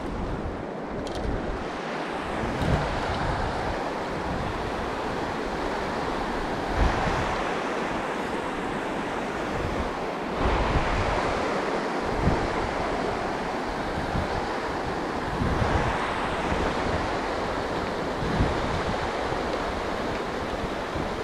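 River water rushing steadily over a shallow rocky riffle, an even hiss of running water, with wind buffeting the microphone now and then in low puffs.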